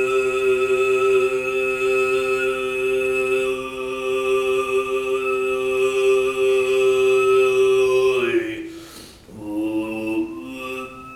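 Tuvan throat singing: one singer holds a steady drone with a strong high whistle-like overtone above it, the overtone melody shifting slightly. About eight seconds in the note slides down and breaks off, a breath follows, and a new held note begins about a second later.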